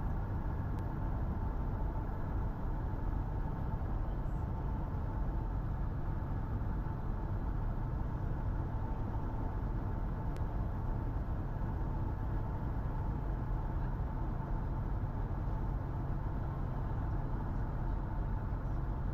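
1967 Cessna 172H's Continental O-300 six-cylinder engine running steadily at reduced landing power, heard from inside the cockpit, with the airframe's drone constant throughout.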